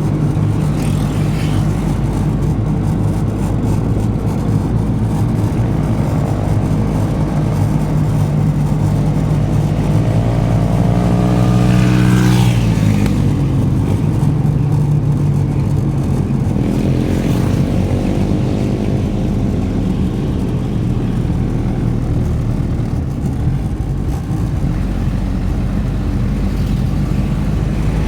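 Off-road vehicle engine running steadily under load, its pitch sweeping up and back down twice, once about halfway through and again a few seconds later.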